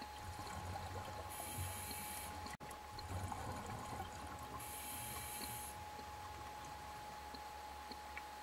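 Scuba diver's regulator heard underwater: two breaths in, each a hiss of about a second, with the bubbling of exhaled air between them. A faint steady high tone runs underneath.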